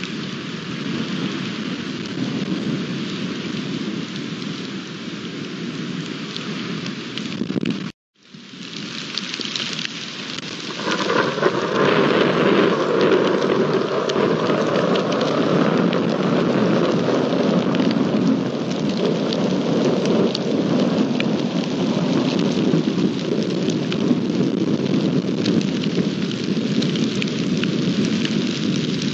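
Heavy rain pouring onto bare earth and dry grass, with thunder rumbling in the storm. The sound cuts out for a moment about eight seconds in, and from about eleven seconds the downpour is louder.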